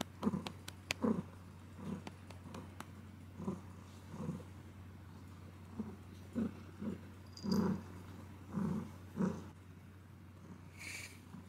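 Domestic cat purring in uneven short pulses while being stroked, over a steady low hum. A few light clicks sound in the first few seconds.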